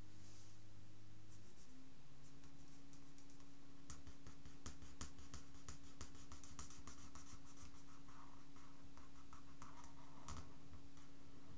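Ink pen scratching on paper in quick short strokes while sketching, busiest from about four seconds in to near the end. A steady low hum runs underneath.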